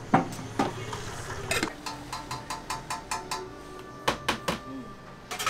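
Metal cooking utensils clinking and tapping against a hotteok griddle: a string of sharp metallic strikes that ring briefly, with a quick regular run of taps in the middle and a few louder knocks near the end.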